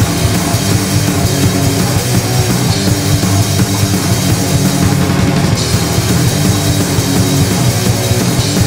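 Loud rock music: a full band with a drum kit playing steadily, in a heavy, punk-edged style.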